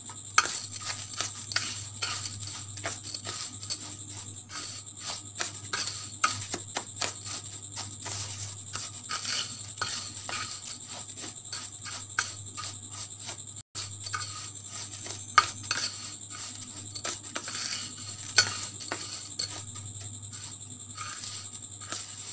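Steel spoon stirring raw rice on a stainless steel plate: repeated clinks and scrapes of metal on metal, with a few louder knocks of the spoon on the plate.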